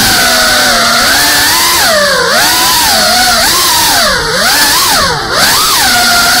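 Small FPV drone's motors and propellers whining. The pitch holds steady, then dips and climbs back several times as the throttle is eased off and opened again, most deeply about four and five seconds in.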